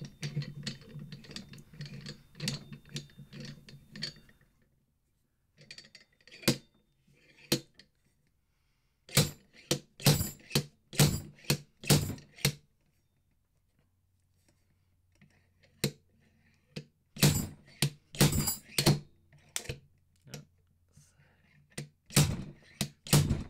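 Slide hammer on a blind bearing puller striking repeatedly, metal on metal, to drag a front wheel bearing out of a motorcycle hub. Light clicks come first, then groups of hard blows with pauses between. The bearing is tight and moving slowly, needing a lot of force.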